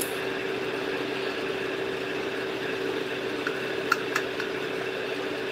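A steady machine hum with one even tone, and a couple of faint clicks about four seconds in.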